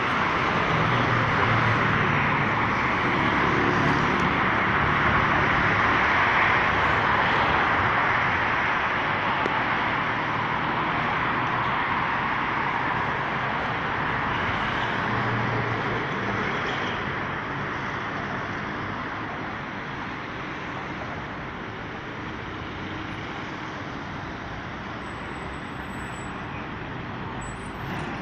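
Road traffic on a busy city street: cars passing, a steady rush of tyres and engines. It is loudest in the first several seconds and gradually quietens over the following stretch.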